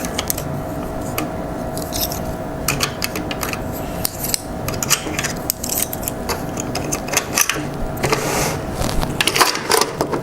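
Toy coins clinking and clicking as change is counted out of a toy cash register's drawer: many small irregular clicks, busier near the end.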